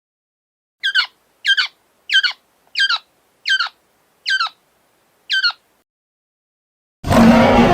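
A bird-like animal call used as a creature sound effect: seven short calls, each sliding down in pitch, about two-thirds of a second apart. About seven seconds in, a loud, dense sound effect starts abruptly.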